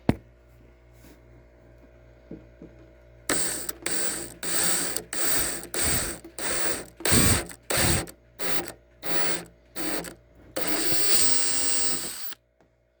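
Electric drill with a taper bit cutting a hole through the bottom of a diesel heater fuel tank, run in about a dozen short trigger bursts starting about three seconds in, then one longer run near the end.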